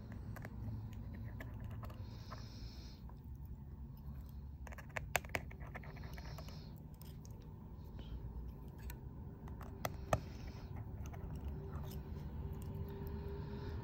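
Small tools clicking and tapping against a phone's internal parts during a repair, with a few sharp clicks about five seconds in and another about ten seconds in, over a low steady hum.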